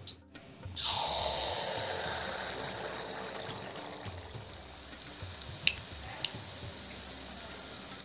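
Kandarappam batter dropped into hot oil: a frying sizzle starts suddenly a little under a second in, loud at first and slowly dying down, with a few small pops.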